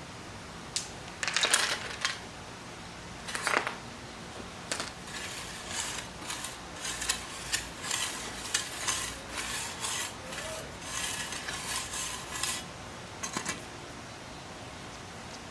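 Small hard objects clicking and clattering as they are handled by hand. It comes in a few loud clatters early, then a run of quick light taps and clicks that stops a couple of seconds before the end.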